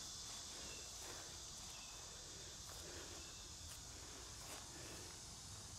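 Faint, steady high-pitched insect chorus.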